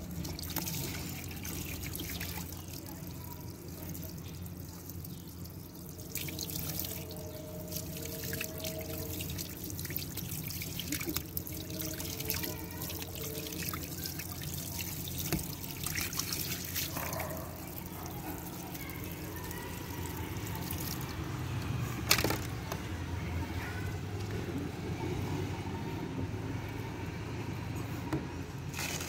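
Water trickling and pouring from a broken CPVC water line into a puddle, over a steady low hum. A single sharp click sounds about two-thirds of the way through.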